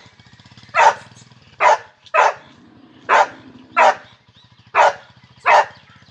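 A Gultair dog barking, seven sharp, loud barks at an even pace of a little more than one a second.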